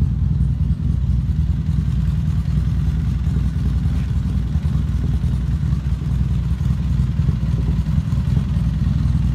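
A vehicle engine idling steadily, low and even.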